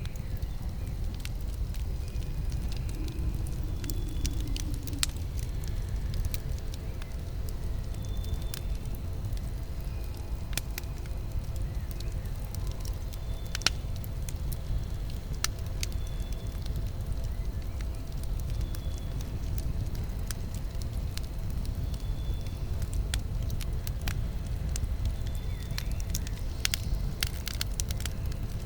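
Wood campfire burning, with a steady low rumble of flames and scattered sharp crackles and pops, and a quick run of pops near the end.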